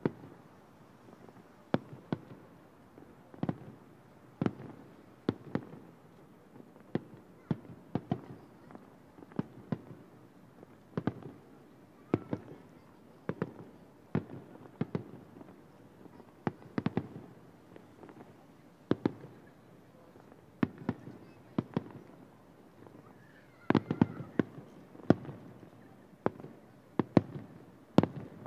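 Aerial firework shells bursting about a kilometre away: a steady run of sharp bangs, roughly one or two a second, some in quick pairs, each with a short echoing tail, and the loudest cluster near the end.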